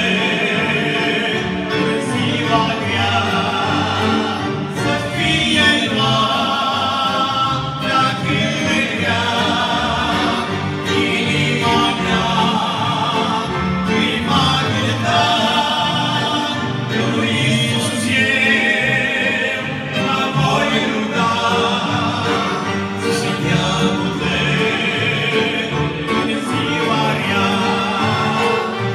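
A gospel song performed live: voices singing with vibrato over accordion and keyboard accompaniment.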